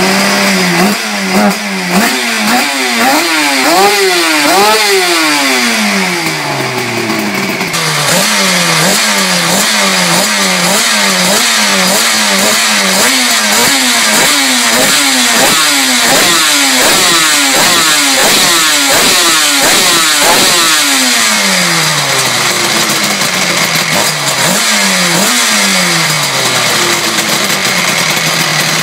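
Suzuki RG500 Gamma's two-stroke square-four engine, breathing through two 2-into-1 exhausts, revved at a standstill. The throttle is blipped over and over, so the pitch climbs and falls: a few slow, long revs at first, then quick blips more than once a second for a long stretch, easing back to slower revs near the end.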